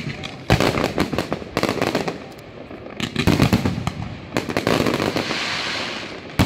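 Fireworks display: aerial shells bursting in rapid clusters of bangs and crackles, with a steady hiss lasting about a second and a half near the end.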